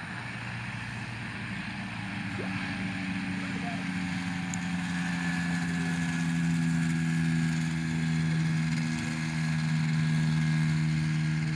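Small propeller plane's engine running as it rolls along the ground, growing steadily louder as it comes nearer, its pitch easing slightly lower.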